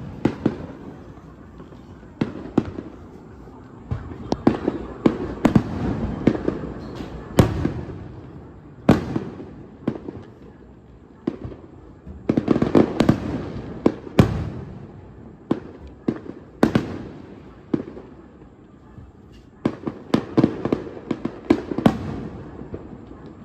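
Aerial fireworks shells bursting: sharp repeated bangs with crackling, coming in dense volleys three times with thinner single bangs between.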